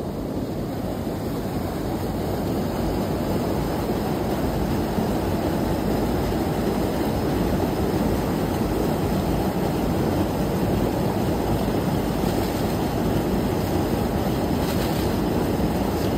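Steady rushing of fast-flowing stream water.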